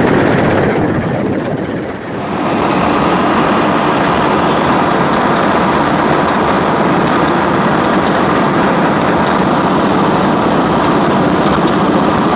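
A military helicopter in flight, heard from on board: a loud, steady rumbling cabin noise that dips briefly and then comes back louder and fuller about two seconds in.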